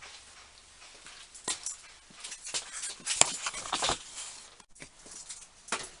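Metal tools being handled as a tap in a large tap wrench is set to rethread a nut: irregular clicks, light knocks and short scrapes, with one sharp click a little after three seconds in.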